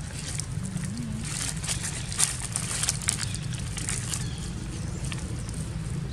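Dry leaves crackling and rustling as a baby macaque grabs and tugs at a bundle of dead leaves, with the sharpest crackles between two and three seconds in, over a steady low background rumble.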